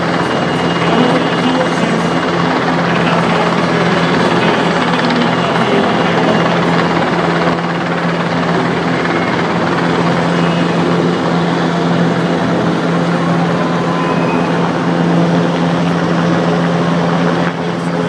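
Military helicopter hovering low, its rotor and turbine running in a steady, loud drone over a constant low hum.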